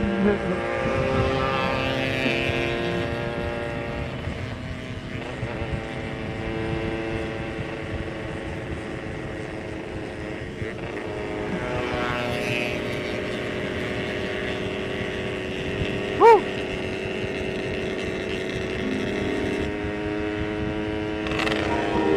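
Yamaha RX-King two-stroke single-cylinder motorcycle engine running under way, its note shifting with the throttle around twelve and twenty-one seconds in. A brief loud tone cuts in about sixteen seconds in.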